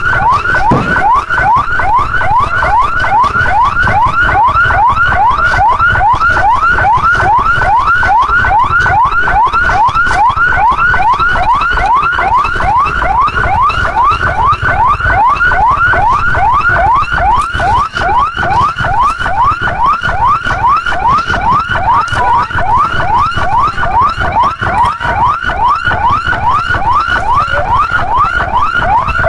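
Emergency vehicle siren in a fast yelp: a loud wail that sweeps quickly upward and drops back, repeating a few times a second without a break, over a low rumble.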